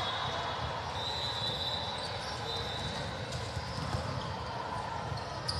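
Volleyball rally in a large indoor sports hall: volleyballs being struck and bouncing, with a few sharp smacks over a steady din of voices and movement. About a second in, a high thin squeal lasts about a second and a half.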